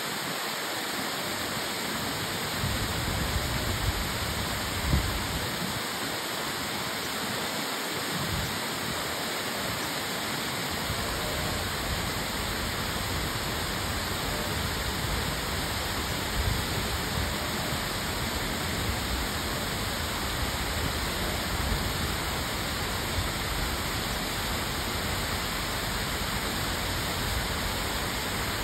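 A steady rushing noise, even and hiss-like, with no distinct events.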